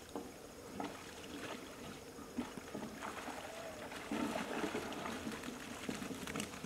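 Water splashing and dripping as a hoop net is hauled out of the river over the side of an aluminum boat, with a few light knocks. The splashing grows louder about four seconds in.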